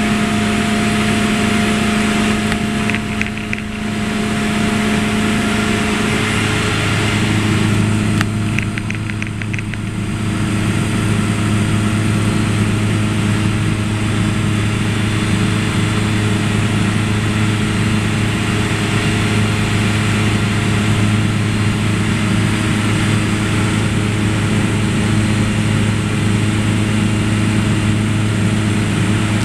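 Small bush plane's piston engine and propeller droning steadily, heard from inside the cabin in flight. The engine tone shifts slightly about six seconds in.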